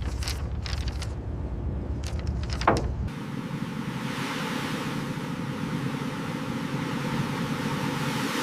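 Low rumbling with a few scattered knocks and a short falling creak. About three seconds in it cuts abruptly to a steady rushing noise of wind and sea.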